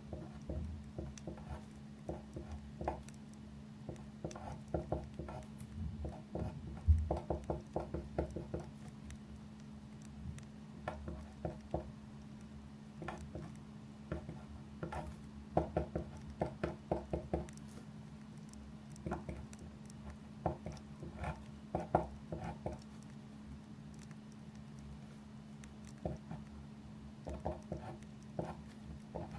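Desk work while studying: clusters of quick, small taps and clicks, several a second in bursts with short pauses between, over a steady low hum.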